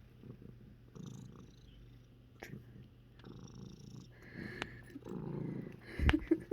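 Cat hiccuping: a few short, sudden jerks over a low, steady rumble, with the biggest and loudest hiccup about six seconds in.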